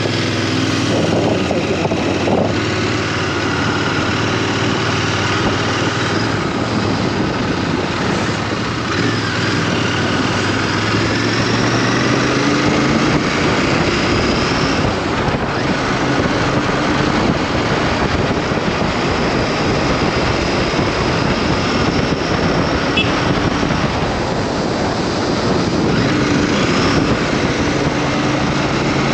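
Motorcycle engine running on the move, its pitch rising and falling with the throttle, over a steady rush of wind noise.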